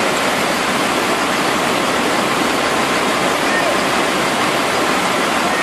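Loud, steady rushing of a fast-flowing, muddy flooded river.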